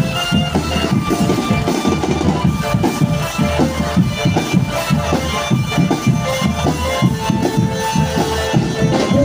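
Live Indonesian drumband music: busy, steady drumming with a repeating low bass-drum pulse under a held keyboard melody.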